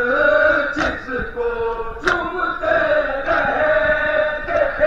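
A crowd of men chanting a Shia mourning lament (noha) in unison during matam. Loud hand strikes on the chest land together about every second and a quarter, keeping the beat of the chant.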